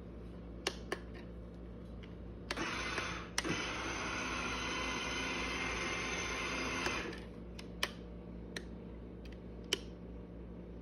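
Electric baby swing running: a steady low motor hum with scattered sharp clicks from the mechanism. A steady hiss joins in about two and a half seconds in and stops about seven seconds in.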